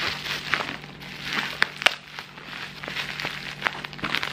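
Plastic courier mailer and black bubble wrap crinkling and rustling as they are handled and pulled apart, with sharp crackles throughout.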